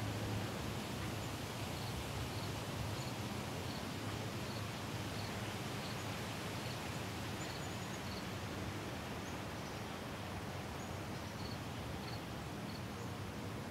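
Steady outdoor background hiss with a faint low hum, and faint short high chirps repeating roughly once a second.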